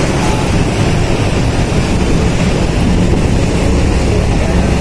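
Steady low rumble of a car ferry's machinery heard on its open upper deck, with wind buffeting the microphone.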